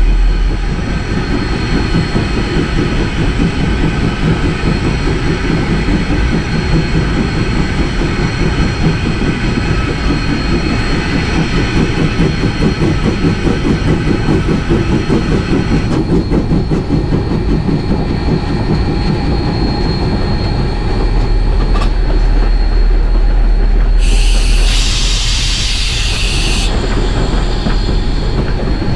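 Rio Grande Southern No. 20, an 1899 4-6-0 ten-wheeler steam locomotive, running, heard from its cab as a steady rattling rumble of running gear and wheels with steam hiss over it. The higher hiss eases about sixteen seconds in, and a short burst of hissing lasts about two seconds near the end.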